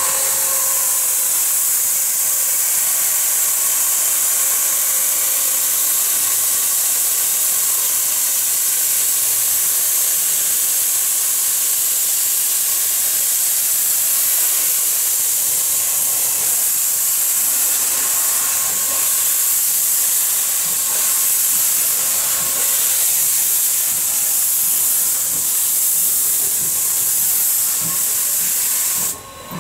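Norfolk and Western #475 steam locomotive venting steam: a loud, steady hiss of escaping steam that stops abruptly near the end.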